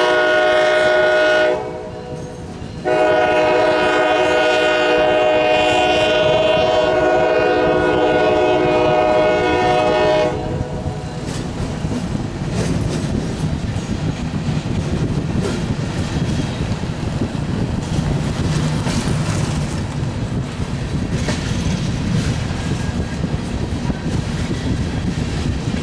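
Norfolk Southern diesel freight locomotive's multi-chime air horn blowing a short blast, then a long one of about seven seconds, followed by the freight train rolling past with wheels clacking over the rail joints.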